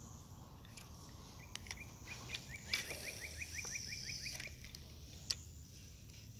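Faint outdoor background with a bird's quick trill of about a dozen short, evenly spaced chirps, about two and a half seconds in and lasting roughly two seconds, plus a few sharp single clicks.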